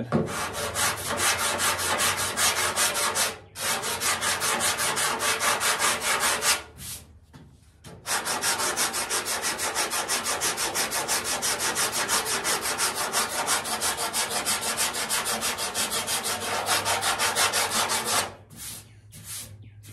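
Sanding block with sandpaper rubbed back and forth by hand over primer on a 1968 Pontiac Firebird's steel front fender, in rapid, even rasping strokes. The strokes break briefly about three and a half seconds in, stop for a second or so around seven seconds, and end shortly before the close. This is block sanding the primer back to show the high and low spots in the fender's body line.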